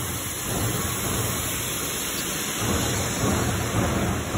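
Ride-on floor scrubber running: a steady rushing of its vacuum and brushes over a low machine hum.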